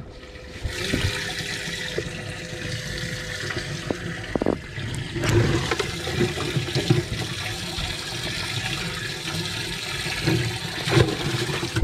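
Water gushing and splashing steadily into a bass boat's livewell, starting about a second in, with a few knocks against the boat.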